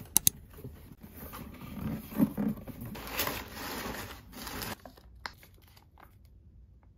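A cardboard shipping box being opened by hand and the crumpled paper packing inside rustling and crinkling as an item is pulled out. Two sharp clicks come just after the start, and a single click about five seconds in.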